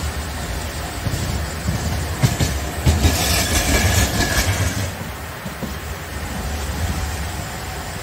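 Kagoshima City streetcar passing close by, its rumble swelling to a peak about three to four and a half seconds in, with a few wheel clacks, then fading.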